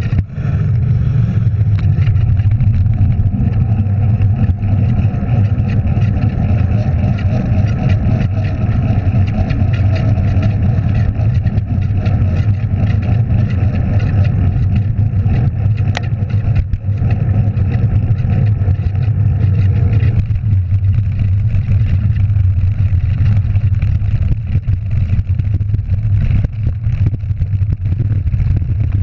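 Wind rushing over a bike-mounted GoPro microphone and mountain-bike tyres rumbling on the path at speed: a loud, steady low rumble.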